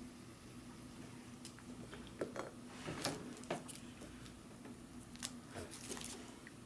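Faint crinkling of candy wrappers and light clicks of sweets knocking in a ceramic bowl as hands pick through a pile of wrapped and loose candies. The scattered clicks bunch between about two and three and a half seconds in.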